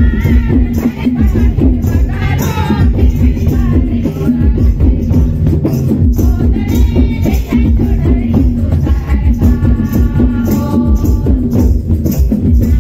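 A group of women singing a welcome hymn together into a microphone, with rhythmic hand clapping and a shaken percussion accompaniment.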